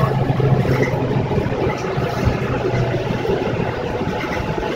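City bus engine running with road noise, heard from inside the passenger cabin. The engine's low hum drops away after about a second, and there is a single low thump a little past two seconds in.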